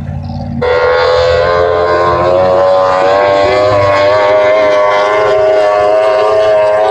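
Racing jetboat engine running hard as the boat speeds past: a loud, steady whine whose pitch rises slowly. It cuts in suddenly about half a second in.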